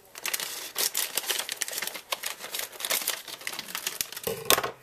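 Kitchen scissors snipping across the top of a plastic steamable bag of sweet corn, the bag crinkling and crackling with rapid, irregular clicks as it is cut open.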